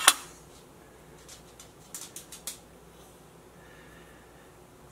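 A metal bench scraper clacks once, sharply, against a granite countertop, then a few quick light clicks and taps follow about two seconds in. Between them only quiet room tone.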